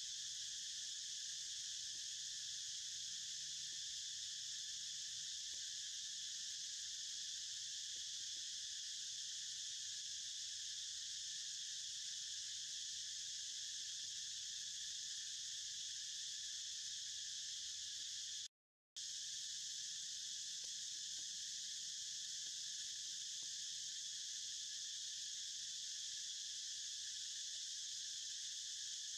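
A steady, unbroken high-pitched drone of insects in the forest, cutting out briefly about two-thirds of the way through.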